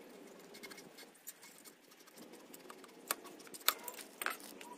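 An Akrapovic exhaust pipe being handled and slid into place on the motorcycle, giving a few sharp metallic clicks in the second half, the loudest near the end.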